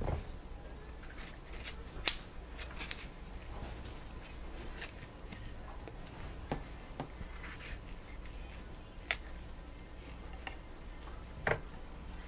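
Kitchen knife cutting small pieces off a peeled vegetable held in the hand: quiet slicing with a few separate sharp clicks and taps, over a faint low hum.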